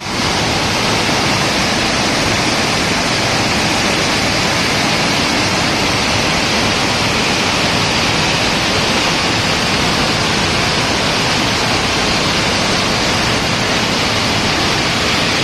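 Floodwater rushing through the open spillway gates of a dam in a steady, loud, even torrent.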